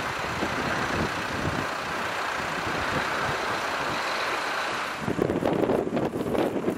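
Steady roadside vehicle noise: engines running and motorway traffic hissing by. After a cut about five seconds in, it gives way to a louder, uneven rumble.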